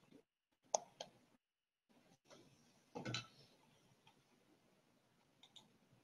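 Near silence with a few faint clicks: two close together about a second in, a short soft noise about halfway through, and faint ticks near the end.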